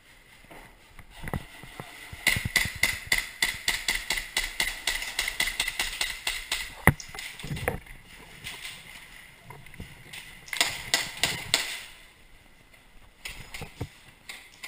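Airsoft gun firing in rapid bursts of sharp clicks, about six a second: one long burst of about five seconds ending in a louder crack, then two shorter bursts.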